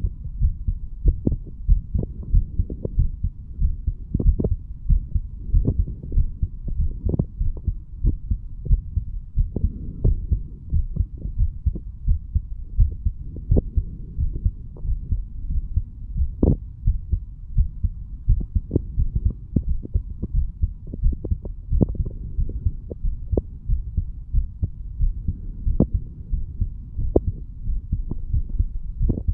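An adult man's heart beating, recorded at the chest: a steady run of low, dull thumps from the valves closing, over a low rumble. The owner takes these for normal heart sounds, with the valves opening and closing nicely.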